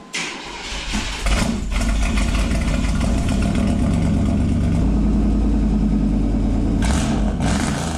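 Car engine running, swelling about a second in to a steady rumbling idle, with two short revs near the end.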